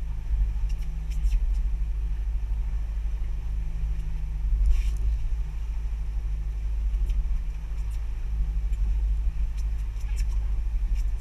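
Boat engine running steadily underway while trolling: a continuous low rumble. A few faint clicks and a brief louder rush of noise come about halfway through.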